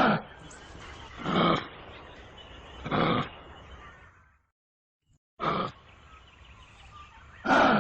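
A kangaroo repeating short calls, about five in all, each roughly a third of a second long and about a second and a half apart. There is a second-long break of silence about halfway through.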